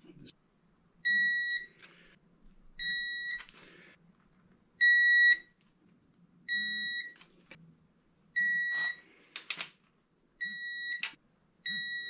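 Electronic torque wrench beeping: a steady high beep about half a second long, roughly every two seconds, each signalling that an engine bedplate bolt has reached its set torque of 250 inch-pounds. A few short clicks follow several of the beeps.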